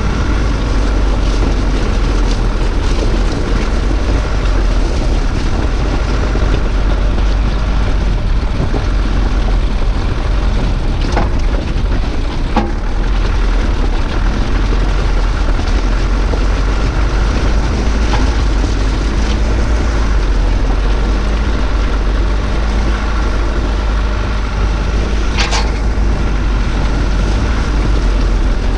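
SsangYong Actyon Sports 4x4 ute driving over a loose gravel riverbed: steady engine and tyre noise on the stones under heavy wind rumble on the camera's microphone, with a few sharp clicks of stones striking the vehicle, the loudest near the end.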